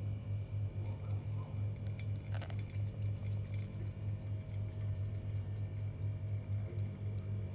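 A low hum that pulses about three times a second, with a few faint clicks and ticks about two to three seconds in.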